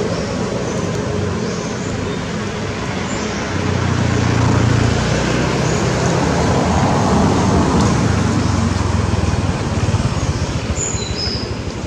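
Steady road traffic noise that swells twice as vehicles pass.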